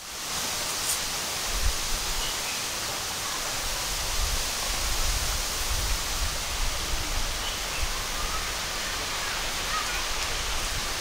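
Outdoor garden ambience: a steady, even rush of noise, with occasional low rumbles and a few faint short chirps.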